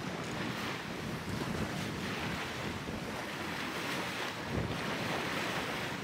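Wind buffeting the microphone over the rush of sea water along the hulls of a sailing catamaran under way, the wash swelling and easing a few times.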